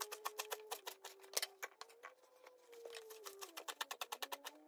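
Kitchen knife chopping leeks on a plastic chopping board: a quick run of sharp taps, several a second, coming fastest near the end. A soft held tone of background music runs underneath.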